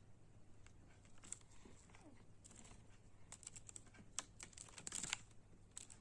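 Faint, irregular small clicks and taps, gathering into a quick run of ticks about three to five seconds in: a budgerigar's beak and claws tapping on hard plastic.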